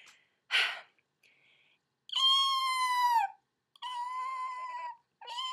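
A woman imitating a cat with her voice: a short breathy sound, then three long, high meows. The first meow is the loudest and falls in pitch at its end; the third starts near the end.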